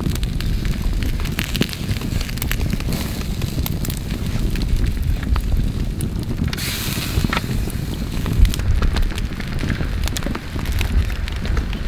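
Wood campfire crackling with frequent sharp pops over a steady low rumble, with a brief hiss about six and a half seconds in.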